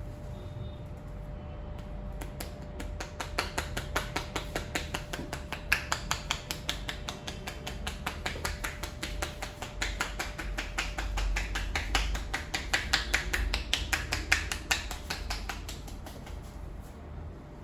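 A barber's hands tapping rapidly and rhythmically on a head in an Indian head massage: light slaps, several a second, starting about two seconds in and tailing off near the end.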